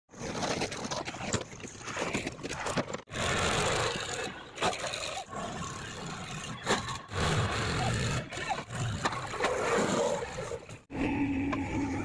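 Diesel engines of a JCB 3DX backhoe loader and farm tractors running and working, in short clips cut together with abrupt breaks at about 3, 7 and 11 seconds.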